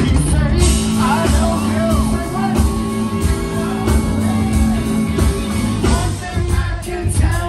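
Live band music with a rock feel: electric guitar, bass and drums playing, with a man singing over it.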